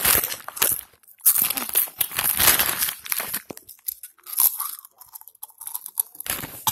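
A plastic snack bag crinkling and rustling close to the microphone while crisp chips are crunched, eaten fast by the handful. The noise comes in several loud bursts, longest in the first half, with a quieter stretch past the middle.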